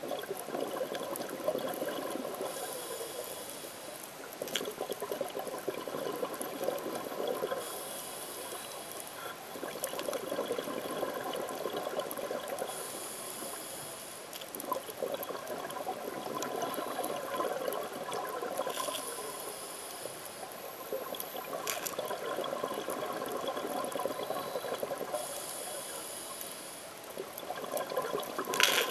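Scuba diver breathing through a regulator underwater: a hissing inhale about every five to six seconds, each followed by a rough, bubbling exhale.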